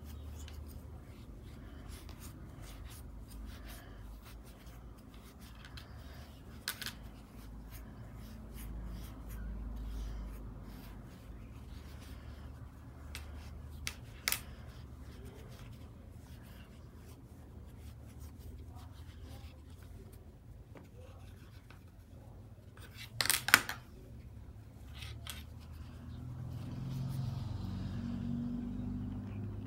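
Close handling noise of stuffing polyester fiberfill into a crocheted amigurumi piece with a wooden chopstick: soft rubbing of fibre and yarn with scattered small clicks and taps, and a louder cluster of clicks about three-quarters of the way through, over a steady low hum.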